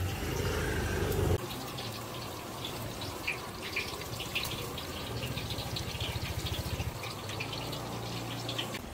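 Handheld gas blowtorch hissing as it sears sauce-glazed chicken skewers on a grill, with a low fluttering rumble from the flame. The glaze sizzles and gives short sharp crackles about three to five seconds in.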